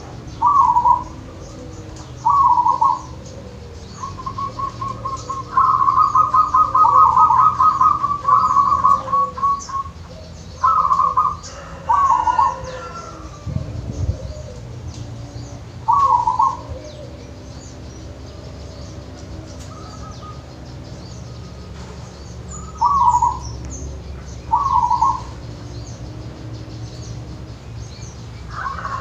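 Zebra dove (perkutut) cooing: short trilled coo phrases near 1 kHz repeated every second or few seconds, with a longer run of rapid coos several seconds in. Faint chirps of other small birds, a steady low hum, and a single low thud about halfway through.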